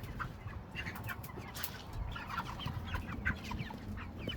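A flock of meat chickens peeping and clucking: many short, overlapping calls.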